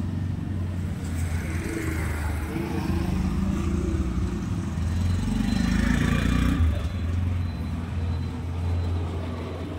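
Electric breaker (demolition) hammer running steadily.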